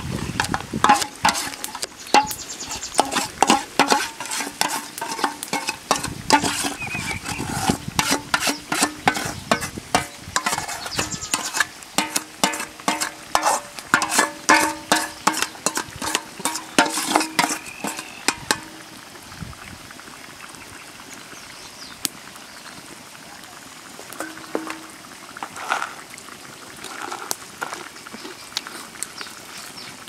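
Utensil stirring and scraping in a pan: quick clicks and scrapes for about eighteen seconds, then only a few scattered knocks.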